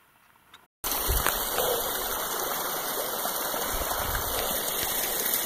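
Waterfall pouring down a rock cliff: a steady rush of water that cuts in suddenly about a second in, after a near-silent start. A few low bumps sound on the microphone.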